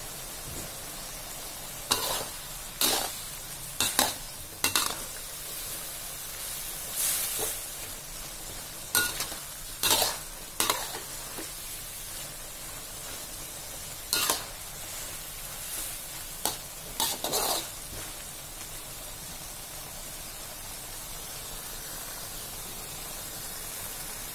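A spatula scrapes and stirs long beans around a metal wok in a series of short, sharp strokes, over the steady sizzle of the beans cooking in a little oil and water. The stirring stops for the last several seconds, leaving only the sizzle.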